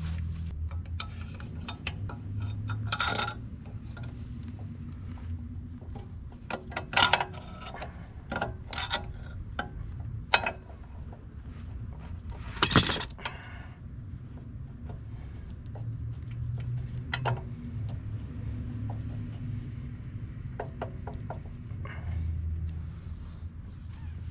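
Steel latch parts of a skid steer Quick-Tach clinking and knocking together as they are fitted back into place, with several sharper metal knocks along the way. A steady low hum runs underneath.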